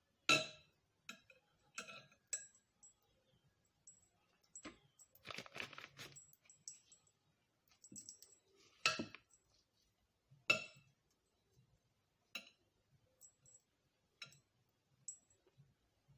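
Metal spoon clinking and scraping against a glass mixing bowl while scooping mince filling: separate sharp clinks every second or two, with a longer scraping stretch about five seconds in.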